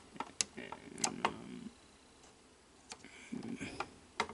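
Several sharp little clicks and ticks with soft handling noise between them: small parts and tools being worked at a VCR's tape-transport mechanism as a broken plastic gear is taken off.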